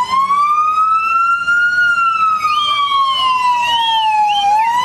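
Police siren on a slow wail, its pitch climbing for about two seconds, falling slowly, then climbing again near the end.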